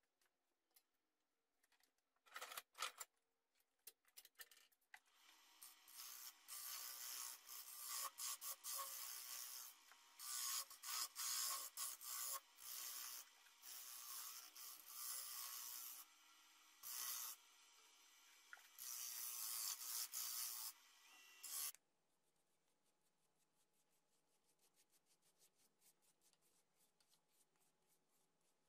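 A box elder bowl blank being worked on a wood lathe: rasping, scraping cuts come in stop-start bursts of a second or two. They stop suddenly about 22 seconds in, and faint fast ticking follows.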